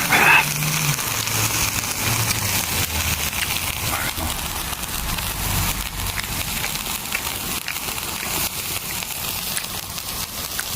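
Steady crackling hiss with many scattered sharp ticks.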